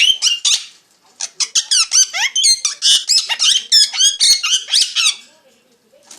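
Parrot chirping in quick, high-pitched squeaky notes that sweep up and down: a short burst, a brief pause, then a long rapid run of chirps that stops about a second before the end.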